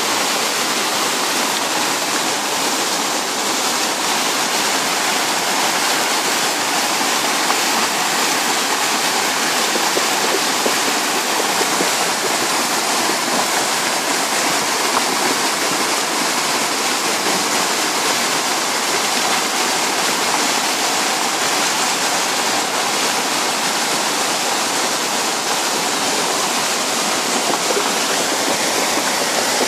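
Muddy floodwater rushing in a torrent down a swollen stream channel and over a road, a steady loud rush of water.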